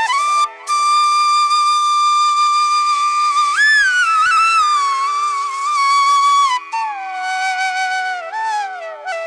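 Background music: a solo flute holds a long note, then bends up and slowly falls through a gliding phrase, over a steady drone.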